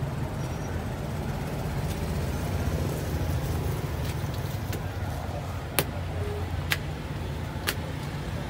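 Steady low rumble of street traffic, with three sharp taps about a second apart past the middle.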